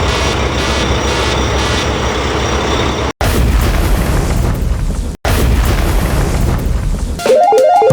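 Edited cartoon sound effects: a steady engine-like rumble cuts off abruptly about three seconds in. A deep rumbling boom follows, broken by another hard cut about two seconds later and then continuing. Near the end a music jingle with a quick repeating melody starts.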